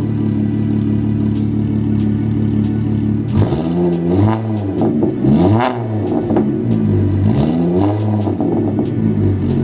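Audi S4 engine idling, then blipped three times from about three seconds in, each rev rising and falling in pitch, before it settles back to idle.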